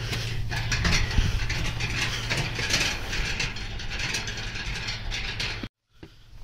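A row of brass prayer wheels spun by hand in passing, their wheels and spindles rattling and clicking continuously. The sound cuts off suddenly near the end.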